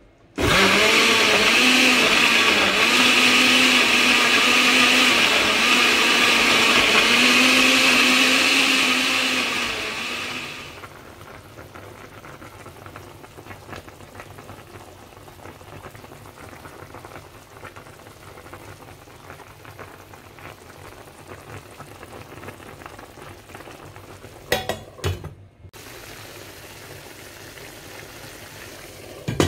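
Electric countertop blender running for about ten seconds, its motor humming steadily as it purées tomatoes, onions, chilli and soaked djansang seeds into a wet paste, then running down. After it stops there is a much quieter steady hiss, with a couple of knocks near the end.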